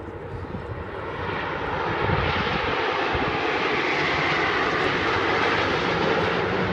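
Jet noise from a formation of nine Canadair CT-114 Tutor jets, each powered by a single turbojet, flying past. The noise grows louder over the first two seconds, then holds steady.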